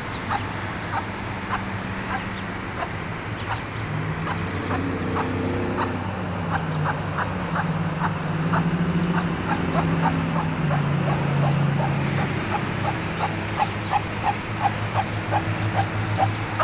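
Domestic ducklings peeping: many short, high calls repeated throughout and coming faster near the end, over a steady low hum.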